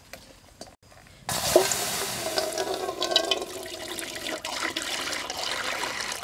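Water running and sloshing, starting abruptly about a second in.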